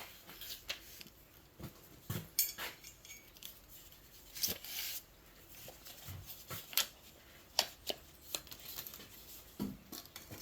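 Scattered light clicks, taps and short scrapes at irregular intervals: small tools and thin sheet-metal pieces being handled while measuring and marking out.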